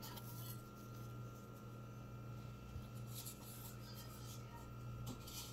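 Soft brushing and rubbing as floured hands pat and spread flour over pieces of dumpling dough, a few faint rustles, the clearest about three seconds in and near the end, over a steady low hum.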